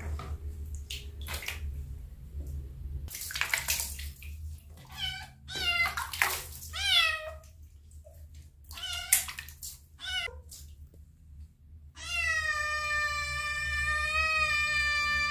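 Kitten meowing while being bathed: several short meows falling in pitch, with splashing and rubbing of wet fur, then one long, steady, drawn-out meow over the last three seconds or so.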